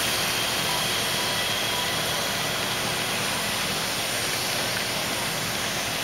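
Steady hiss of steam blowing off from a live-steam locomotive, mixed with a ridable-scale freight train rolling past on its track.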